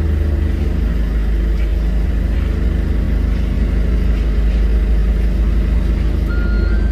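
Boeing 737's jet engines at taxi power: a steady low rumble with a faint high whine. A repeating two-note electronic beeping starts near the end.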